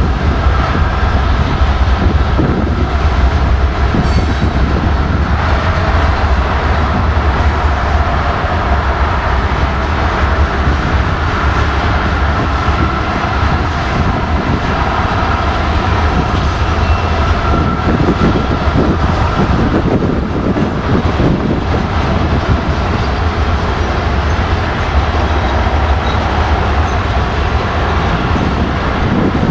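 Train passing close by, its railcars rolling steadily with a continuous heavy rumble and faint steady wheel squeal.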